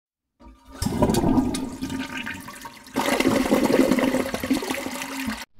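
Water rushing and gurgling in two stretches, the second carrying a steady low tone, cutting off abruptly just before the end.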